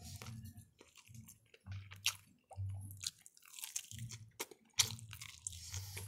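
A person chewing and biting into food with her mouth close to the microphone: irregular sharp mouth clicks between chews.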